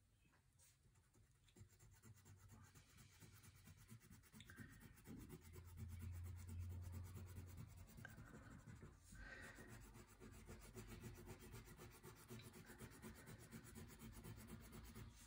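Wax crayon rubbed back and forth on paper, colouring in a large area: a faint, continuous scratchy rubbing that grows a little louder partway through.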